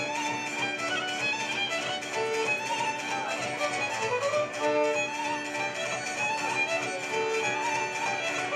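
Maramureș folk dance music: a fiddle plays a short tune that repeats every two seconds or so, over a steady quick beat.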